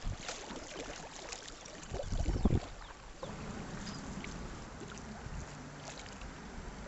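Kayak paddle strokes splashing in moving river water, with a louder low rumbling burst about two seconds in.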